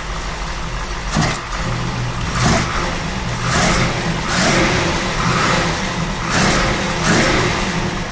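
1932 Ford hot rod's multi-carburetor engine, cold-started and warming up, blipped about seven times by hand at the throttle linkage, with each rev dropping back to idle between.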